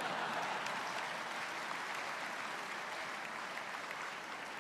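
Lecture audience applauding, a dense patter of many hands clapping that slowly fades.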